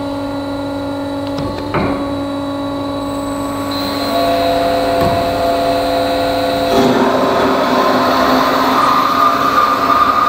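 Alligator HD510SAF semi-automatic bandsaw cutting through mild steel plate, with its blade running at about 70 metres a minute. A steady motor whine of several tones comes with one click about two seconds in. From about seven seconds in, a harsher cutting sound grows louder.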